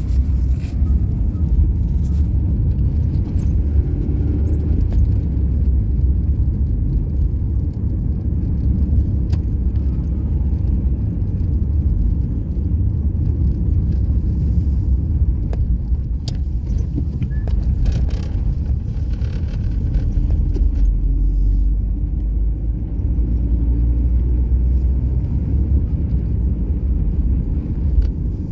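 Car driving, its engine and tyres making a steady low rumble with small rattles now and then.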